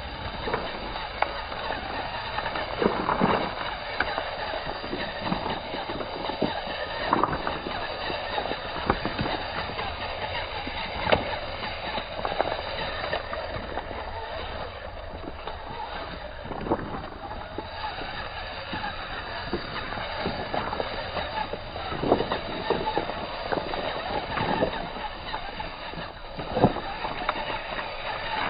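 An RC rock crawler's tyres and chassis grinding over loose river cobbles, with stones clacking and knocking against each other at irregular moments over a steady hiss.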